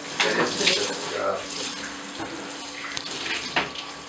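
Water running from a handheld shower into a bathtub in a steady spray, with a couple of light knocks about three seconds in.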